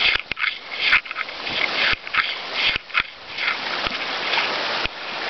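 Footsteps crunching on a rocky, stony trail, an uneven step about every half second with a few sharp knocks, over a steady background hiss.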